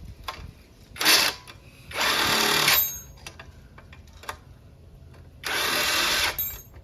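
Cordless impact driver firing in short runs on stuck, rusty bolts: a brief burst about a second in, then two longer runs of under a second each.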